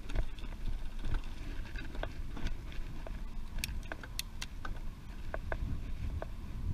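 Riding a bicycle: wind rumbling on the camera microphone, with irregular light clicks and rattles from the bike.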